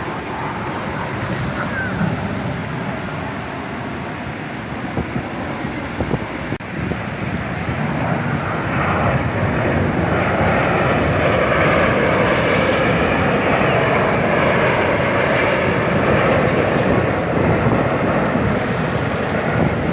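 Jet aircraft flying past, its engine noise building about eight seconds in and staying loud, with a slowly shifting pitch, over wind on the microphone and sea noise.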